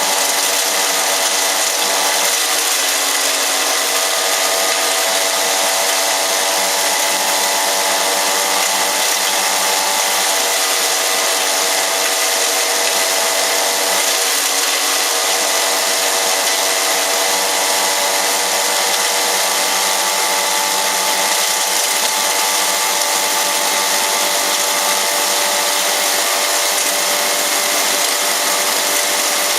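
Electric hammer mill herb grinder running steadily at full speed: a constant motor whine made of several steady tones, over a loud, even hiss.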